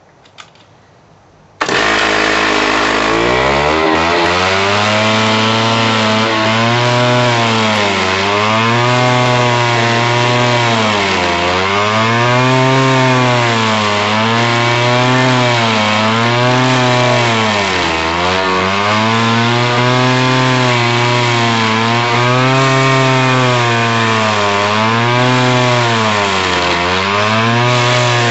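Alpine Magnum stump grinder's engine running hard as its cutting wheel is swept into a stump. The sound starts abruptly about two seconds in and climbs in pitch. After that the pitch dips and recovers every second or two, as the engine bogs slightly under load with each pass of the cutting wheel.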